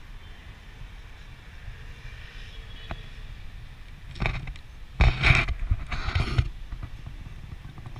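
Steady low rumble of outdoor city traffic noise. About four seconds in comes one short loud rush of noise on the microphone, then two longer, louder rushes with thumps.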